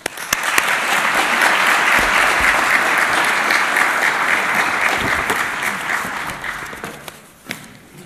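Audience applauding in a hall. The clapping starts at once, holds steady for about six seconds, then fades out.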